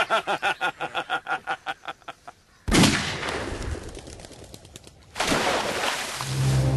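Two loud gunshots about two and a half seconds apart, each trailing off in a long echo. Before them, a rapid run of short pulsed calls fades away.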